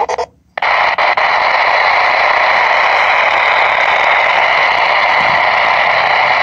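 Sony ICF-SW1 shortwave radio's speaker cuts out for a moment, then gives a steady, loud hiss of static: the set is tuned off-station between broadcasts.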